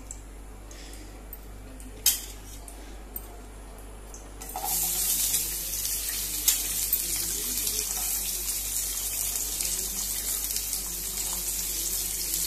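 Chopped onion hitting hot oil in a nonstick frying pan, sizzling with a steady hiss that starts suddenly about four and a half seconds in. Before that there is a single sharp click about two seconds in.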